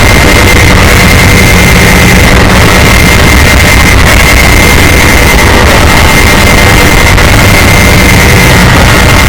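Deliberately blown-out mock emergency alert alarm at full volume: a constant, harsh wall of noise with a steady high-pitched tone running through it.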